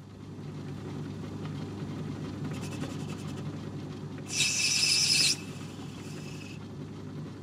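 Myford ML7 lathe running with a steady hum while it spins a brass bar. About four seconds in, the tool cuts the brass for about a second with a loud, high-pitched hiss, then the lathe runs on alone.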